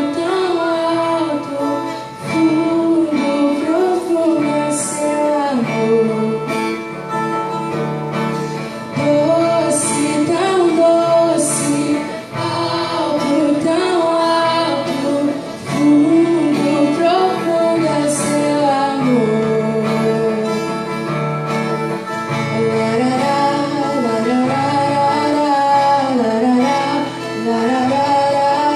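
Christian worship song: voices singing a melody over guitar accompaniment.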